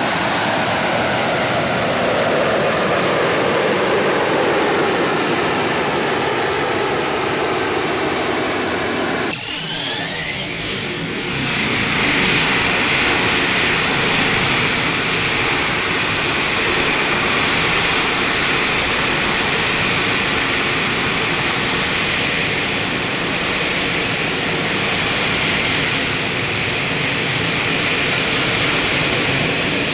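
AV-8B Harrier II's Rolls-Royce Pegasus vectored-thrust turbofan running at hover power: loud, steady jet noise with a slowly falling tone. About nine seconds in the sound breaks off briefly and returns with a strong high whine over the jet noise.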